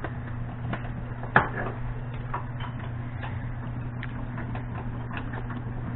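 Irregular light metal clicks and clinks of hand tools working on the engine, with one sharper clink about a second and a half in, over a steady low hum.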